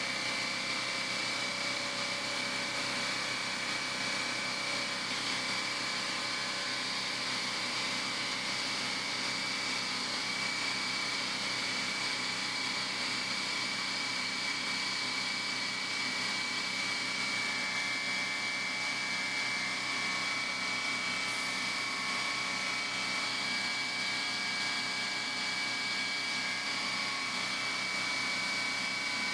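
HVLP gravity-feed spray gun running on compressed air at 22 PSI while spraying unthinned primer: a steady hiss of air with a thin, steady high whistle through it.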